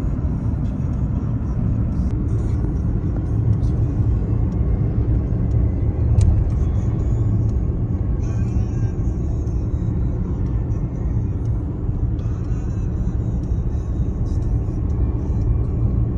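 Car in motion: a steady low road and engine rumble, as heard inside the cabin.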